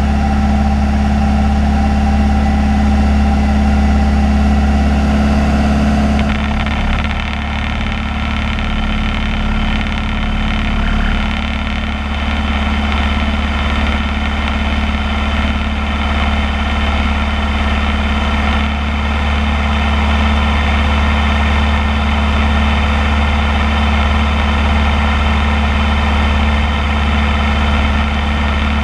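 Alon A2 Aircoupe's Continental C90 flat-four engine and propeller droning steadily in the cockpit. About six seconds in the engine note drops a little and stays lower: power is being reduced as the plane comes in to land.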